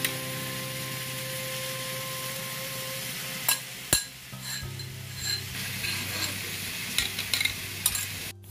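Metal spoon scraping crushed garlic out of a small metal mortar and knocking against small steel bowls: light scraping with a few sharp metal clinks about halfway through and again near the end, over a steady hiss.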